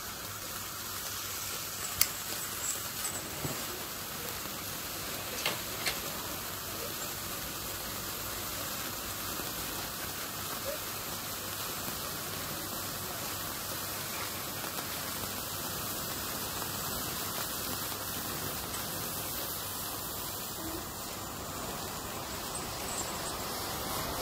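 Sparkler burning with a steady fizzing hiss, with a few sharp crackles in the first six seconds.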